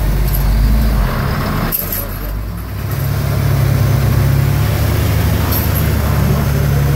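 Diesel engine of a 480 hp heavy truck tractor running under load as it drags a loaded lowboy trailer through deep mud. It gets louder and stronger about three seconds in, then holds steady.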